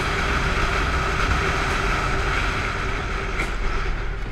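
Wind rushing over the microphone of a cruiser motorcycle riding at road speed, with the engine's steady note underneath. The rush eases slightly near the end.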